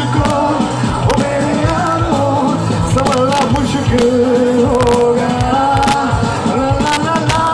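Live rock band playing, recorded from the audience on a phone: drums and bass under a held, wavering melodic line.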